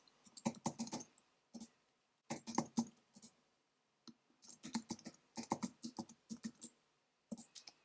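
Typing on a computer keyboard: quiet keystroke clicks in several short bursts with pauses between them, each burst a word being typed and entered.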